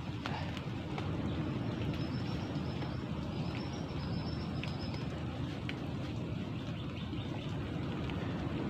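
Birds in the forest giving a few short chirps and a thin high call held for about three seconds, over a steady low rumble.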